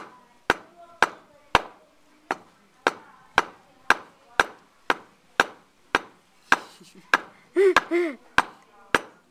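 Coffee beans being pounded with a metal pestle in a wooden mortar: steady, sharp knocks about twice a second. A short laugh cuts in shortly before the 8-second mark.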